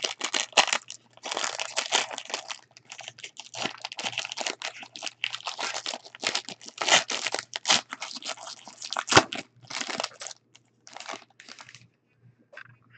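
A trading-card pack wrapper being torn open and handled, crinkling and crackling almost continuously, with one sharp snap about nine seconds in; the crinkling thins out and stops near the end.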